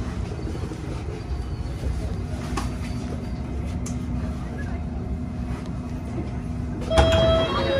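Metropolitan line S Stock train running slowly into the platform, a low rumble with a steady hum. About seven seconds in the hum stops, a sharp clunk sounds and a string of short beeps starts: the door-open signal.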